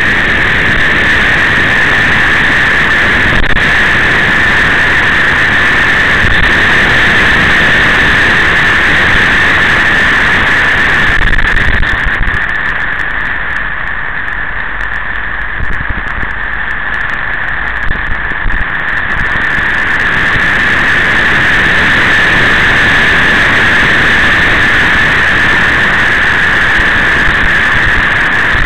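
Steady rush of motorcycle engine and wind noise picked up by a camera on the moving bike. It eases for several seconds around the middle of the ride, then comes back up.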